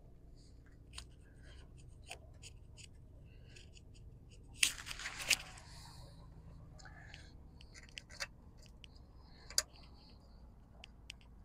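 Hand-tool work in an engine bay: scattered small metal clicks from a socket ratchet and small parts on the glow plug relay being handled, with a louder brief clatter about five seconds in.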